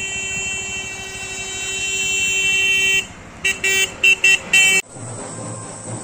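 Vehicle horn sounding one long blast that grows louder for about three seconds, then four short toots, cut off abruptly about a second before the end.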